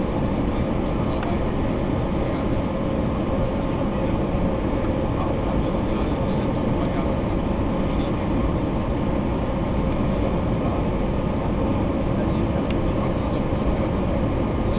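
Steady cabin noise of an Airbus A320 descending to land: the drone of its jet engines and the rush of air past the fuselage, with a faint steady hum and no change in pitch or level.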